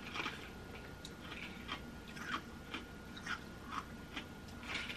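Chewing ice close to the microphone, a string of sharp crunches about two a second.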